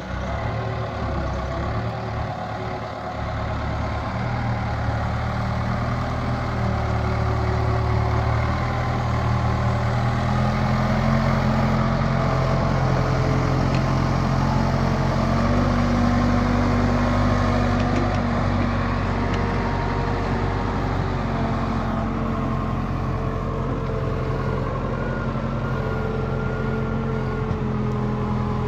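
Case 580 Super K backhoe's diesel engine running under load. Its pitch rises a few seconds in and holds at higher revs, then eases off slightly in the second half.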